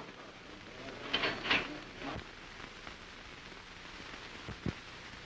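Steady crackle and hiss of an early-1930s optical film soundtrack, with a few brief soft sounds about a second in and a single click near the end.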